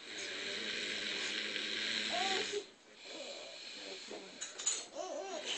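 A man snoring heavily: one long, loud snore with a steady low buzz lasting about two and a half seconds, then a softer breath, and the next snore beginning right at the end.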